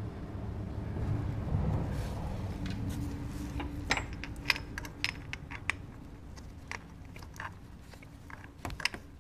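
Hands in gloves handling a metal oil filter cover as it is pushed back onto the engine case. There is low rustling close to the microphone, then a string of light metallic clicks and taps about four seconds in.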